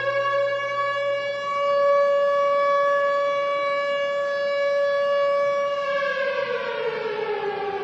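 Air-raid siren sounding an alarm, which here is a practice alert. It holds one steady wailing tone, then winds down in pitch from about six seconds in.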